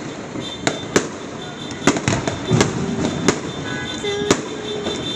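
Fireworks and firecrackers going off all around: a dense crackle with sharp bangs at irregular intervals, roughly every half second to a second.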